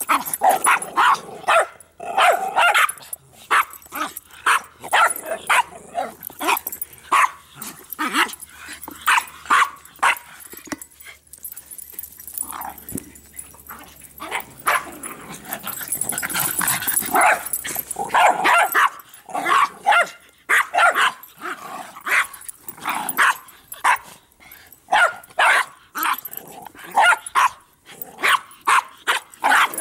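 Several small terriers barking and growling in rough play, short sharp barks coming thick and fast one after another, with a denser, more continuous stretch around the middle.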